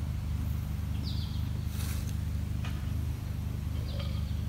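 Outdoor ambience: a steady low rumble with a bird chirping, a quick run of short falling notes about a second in and again near the end.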